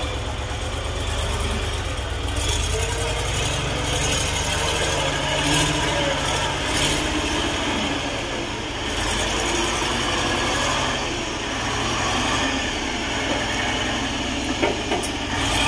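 Heavy logging truck's engine running hard with a steady low rumble as the fully loaded truck fails to climb a muddy slope.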